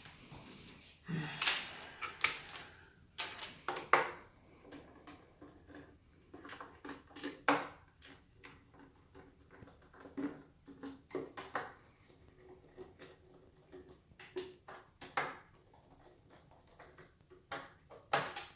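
Hand tools and small parts handled during a repair of a Xiaomi M365 electric scooter: irregular clicks, taps and light metallic clatter, a few sharper knocks among them.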